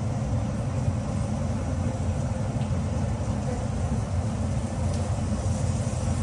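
Steady low rumble of a gas stove burner running under a kadhai, with a faint even hiss of puris frying in oil.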